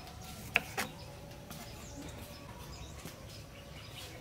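Kitchen knife cutting tomato on a wooden chopping block, the blade knocking sharply on the wood twice in quick succession about half a second in. Faint bird chirps in the background.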